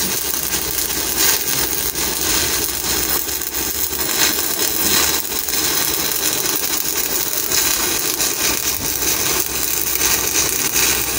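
Shielded metal arc (stick) welding with a 1/8-inch E7018 electrode at about 100 amps on a vertical steel plate: the arc gives a steady, even crackle as the rod is weaved in a zigzag.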